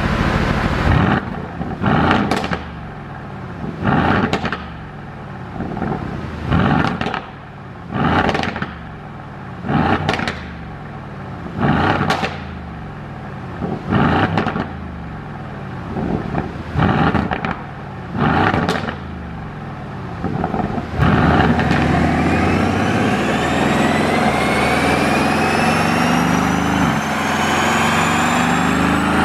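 2019 Aston Martin V8 Vantage's twin-turbo 4.0-litre V8 revved in short blips a dozen or so times, each falling back with a burst of exhaust pops and crackles from its pop-and-bang tune. About twenty seconds in it changes to one long, continuous run, the engine pitch rising steadily.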